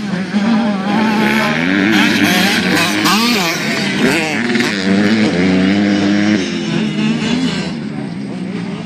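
Super Mini class motocross bikes racing, their engines revving up and down over and over as the riders work the throttle through the track's jumps and turns.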